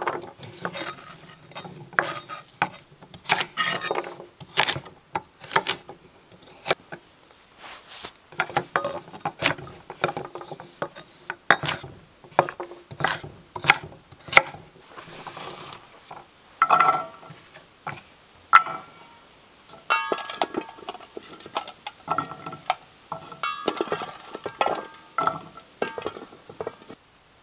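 Chef's knife chopping carrots on a wooden cutting board: a run of sharp, uneven knocks. From about two-thirds of the way in, ringing metallic clinks from a stainless steel bowl as vegetables are handled, mixed with further knocks.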